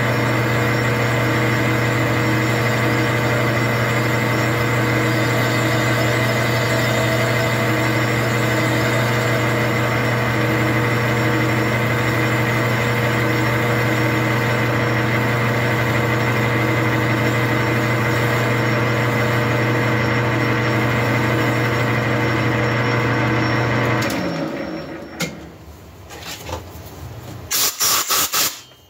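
Metal lathe running with a steady hum while its cutting tool takes a light pass across the squish band of a Husqvarna 372XP chainsaw cylinder. The lathe is switched off about 24 seconds in and winds down. A couple of short, loud hissing bursts follow near the end.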